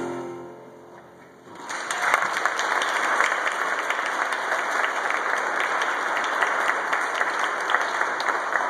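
A song's last notes die away, and after a short pause a church congregation applauds steadily, starting about two seconds in.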